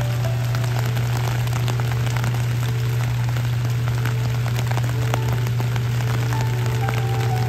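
Steady rain falling on wet stone paving and grass, a continuous hiss dotted with many small drop ticks, over a steady low hum.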